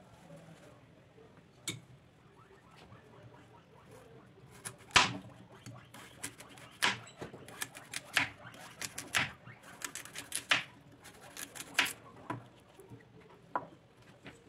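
Kitchen knife slicing a carrot into rounds on a stone slab: a run of sharp, irregular knocks as the blade cuts through and strikes the stone, starting about four seconds in, with the loudest about five seconds in.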